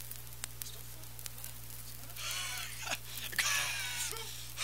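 A man breathing hard with a wheeze, out of breath from shovelling snow, with loud rasping breaths starting about two seconds in. A steady low hum lies underneath.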